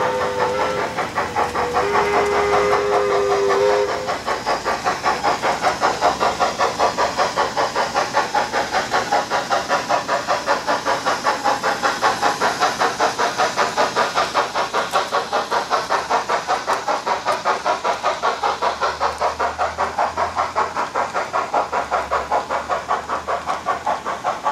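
Sound units of HO-scale Trix New York Central H6 Mikado model steam locomotives: a steam whistle blows twice in the first four seconds, then a fast, even chuffing of about five beats a second as the double-headed locomotives pull their train.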